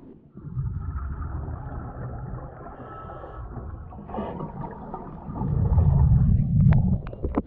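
A diver breathing underwater through a late-1950s US Divers DA Aquamaster double-hose regulator. A long airy draw of air comes first, then about two-thirds of the way through a louder, low rumble of exhaled bubbles, with a few sharp clicks near the end.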